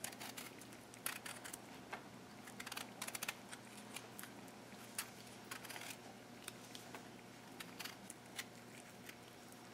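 Small kitchen knife peeling the skin off firm, half-ripe mango pieces held in the hand: faint, irregular little scrapes and clicks.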